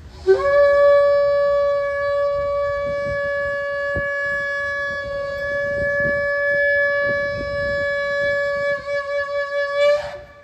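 Shofar blown in one long held blast of nearly ten seconds: a brief lower note at the start jumps up to a steady tone, which wavers near the end and breaks off with a short upward flick.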